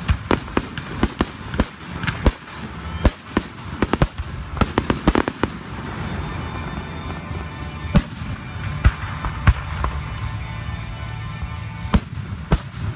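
Aerial fireworks shells bursting: a rapid volley of sharp bangs for the first five seconds or so, then fewer, louder single bangs spaced a second or more apart.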